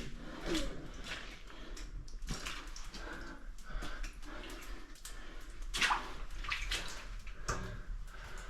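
Footsteps wading through shallow water and mud: irregular splashes and squelches, a few a second.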